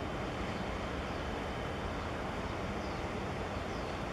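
Steady low rumble of a large container ship under way close by, blended with an even outdoor rush of noise.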